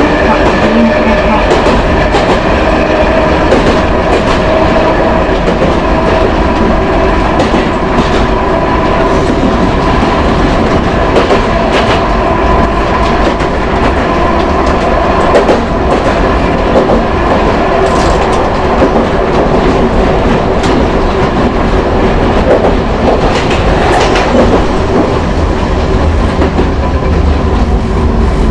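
Hankai Tramway Mo 161 tram running, heard from inside the car: its nose-suspended traction motors and gears give a steady whine in several pitches over the rumble of the wheels, with scattered clicks from rail joints.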